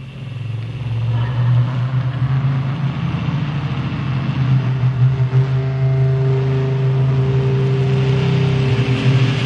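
A steady low engine-like drone, like a car engine running, fading in over the first second and then holding. A fainter, higher steady tone joins it about halfway through.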